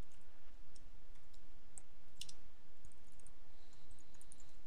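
Computer keyboard keys clicking as text is typed: light, irregular taps over a faint low steady background.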